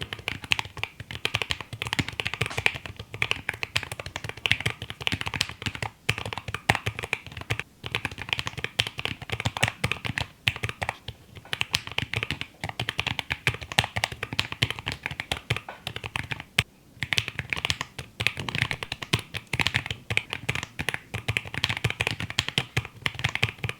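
Fast, continuous typing on a Vero75 mechanical keyboard: rapid key clacks with brief pauses now and then.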